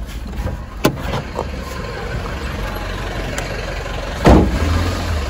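Car engine idling, a steady low hum, with a sharp click a little under a second in and a loud thump about four seconds in.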